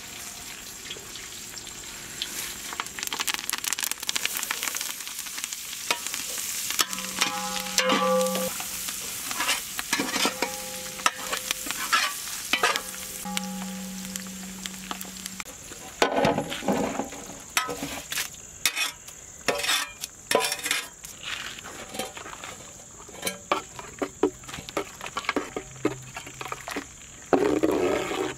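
Cumin seeds, black pepper and curry leaves sizzling and crackling in hot ghee as a tadka fries, with a steady hiss and many small pops. From about the middle on, a spoon stirs and clinks in the metal pan.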